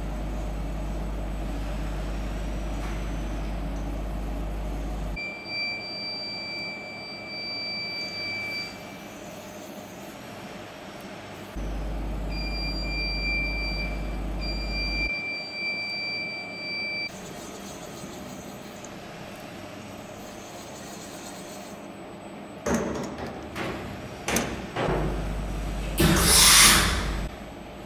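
Electronic edge finder in a CNC mill's spindle beeping with a steady high tone for a few seconds, twice, as it touches the edge of the steel stock, over the machine's low hum. Near the end come a few clicks and then the loudest sound, a short blast of hissing air as the spindle's pneumatic clamp releases the tool.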